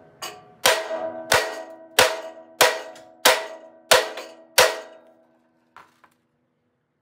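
Ball-peen hammer striking a seized part on the steel chassis of a 33-inch Snapper rider, eight hard blows about two-thirds of a second apart, each leaving a metallic ring. The blows stop about five seconds in. The part is stuck fast and will not come out without penetrating oil.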